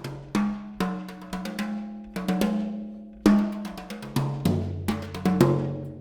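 Instrumental music: a drum kit playing a steady rhythmic pattern of sharp hits over sustained low cello notes.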